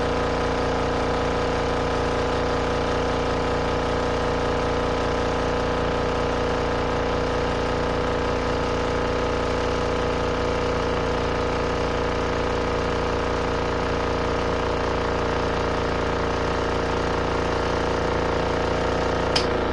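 RV washing machine's motor running at a steady speed, a constant hum made of several steady tones. A single sharp click sounds just before the end.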